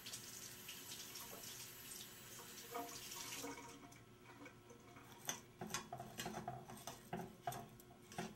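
Kitchen faucet running water into the sink for about three and a half seconds. Then, about five seconds in, a fork starts clinking and scraping against a metal saucepan as rice is stirred.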